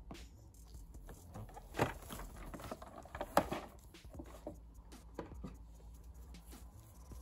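Cardboard-and-plastic blister pack being handled and turned over in gloved hands, with small clicks and rustles, and two louder knocks about two and three and a half seconds in as it meets the wooden table.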